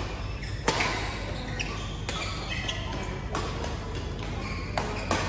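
Badminton rackets striking a shuttlecock during a doubles rally: several sharp smacks, the loudest under a second in, with shoes squeaking on the synthetic court between the hits.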